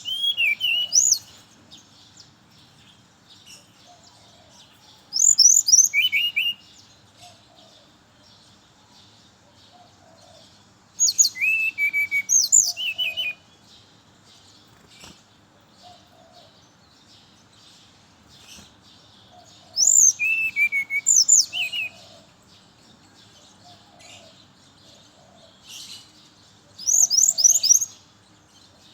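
Brown-chested jungle flycatcher singing: five short phrases of quick, high whistled notes that slide up and down, spaced several seconds apart.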